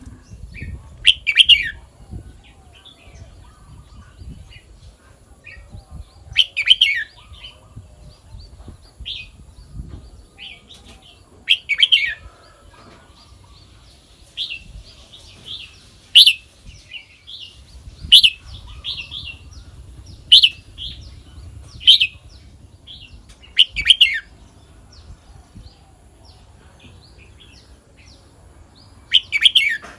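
Red-whiskered bulbul singing: short, loud whistled phrases repeated every few seconds, with quieter chirps between them.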